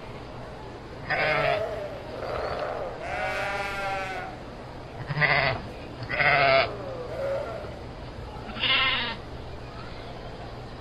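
Sheep bleating: about six separate bleats, one long quavering bleat of about a second a few seconds in, and shorter ones after it.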